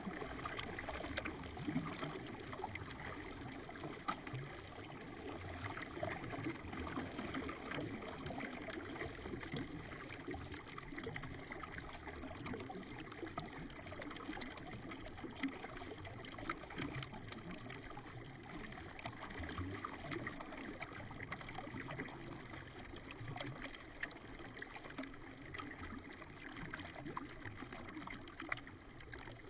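River water flowing, played back in slow motion: a steady rush with many small trickling and gurgling splashes.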